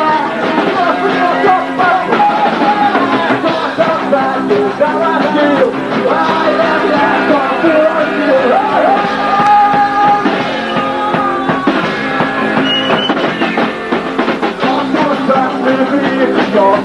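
Live punk rock band playing: a male vocalist singing over drums, crashing cymbals and guitars.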